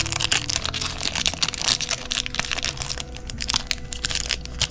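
Foil wrapper of a Yu-Gi-Oh booster pack crinkling and crackling as it is handled and opened.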